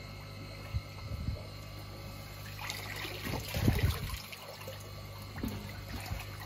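Water sloshing and trickling as fish eggs are scooped from a tank with a hand net and poured off, loudest about three to four seconds in, with a couple of dull thuds, over a steady low hum.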